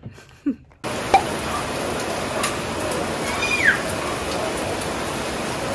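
Heavy rain falling steadily, starting abruptly about a second in. Near the middle, a brief high sound slides down in pitch above the rain.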